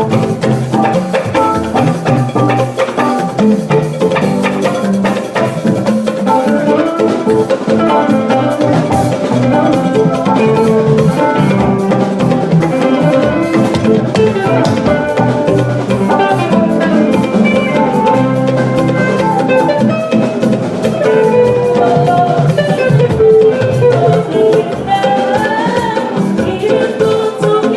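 Live band playing an instrumental passage: a drum kit and percussion keep a steady beat under a moving melody from pitched instruments.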